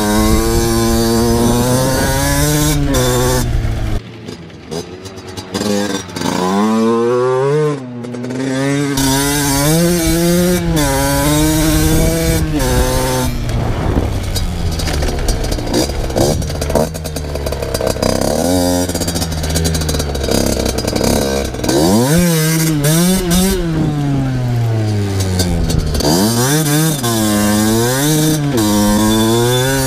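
Two-stroke motocross bike engine being ridden hard, its revs repeatedly climbing and dropping through the gears. About four seconds in, the throttle comes off and the engine goes quieter for a few seconds before it pulls hard again.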